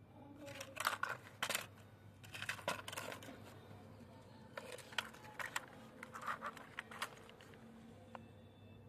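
Plastic toy auto-rickshaw being handled: its plastic body and wheels clatter and scrape against concrete in several short bursts of clicks.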